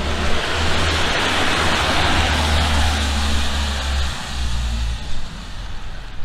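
A vehicle driving past on a wet street: its tyre hiss swells and fades over about four seconds, over a low rumble.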